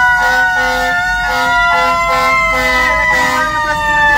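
Several sirens sounding together: a few held tones slowly drifting down and up in pitch, with a short pulsing tone repeating about three times a second underneath.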